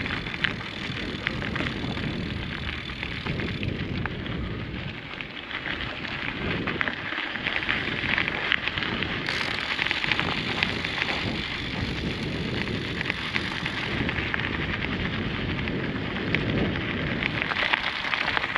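Vehicle tyres crunching and crackling over a loose gravel track while driving, with the engine running underneath.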